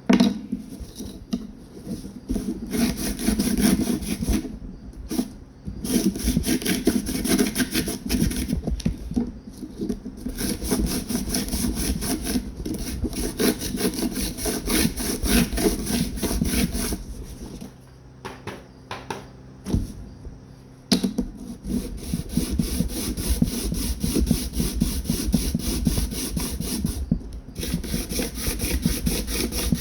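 Coarse 60-grit sandpaper rubbed back and forth by hand over handle scales in quick, rhythmic strokes, with a few short pauses; the deep scratches give the epoxy something to grip.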